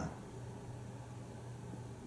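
Quiet room tone: a steady faint hiss with a constant low hum.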